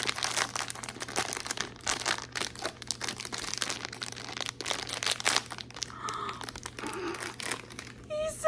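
Crinkly packaging being handled and torn open to unwrap a Sonny Angel blind-box figurine: a dense, irregular run of crackles and crinkles.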